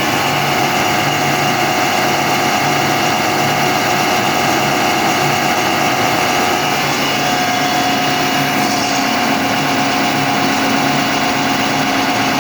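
Atlas Copco GAe22 rotary screw air compressor running steadily with a whine of several steady tones over a regularly pulsing low hum; this is the bad noise it is making. A tone shifts slightly about seven seconds in.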